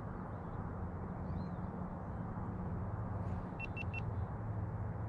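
Small gasoline outboard motor running at a steady speed, pushing the boat along, its chewed spark plug wire freshly repaired. Three short high beeps sound near the end.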